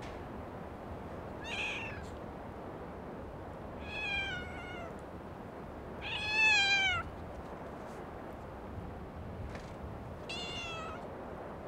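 Domestic cat meowing four times, each call falling in pitch; the third, about six seconds in, is the loudest and longest. A steady low background noise runs underneath.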